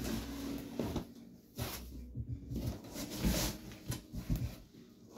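Cardboard box and protective cloth wrapping rustling and scraping as a boxed upholstered ottoman is slid out by hand, in irregular bursts with a few soft knocks.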